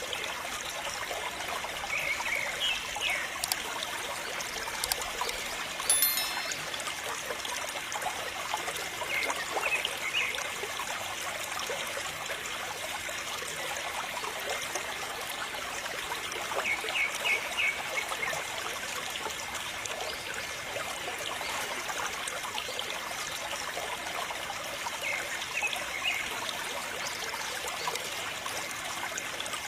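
A thin stream of water trickling and splashing steadily from a small tube onto toy tractors, rinsing off the mud.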